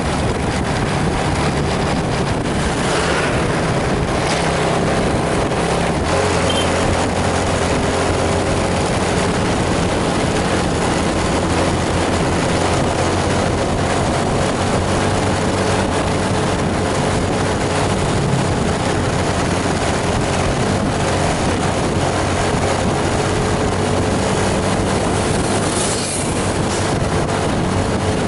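A heavy diesel bus engine running steadily under load over a steady hiss, its note stepping to a new steady pitch about six seconds in.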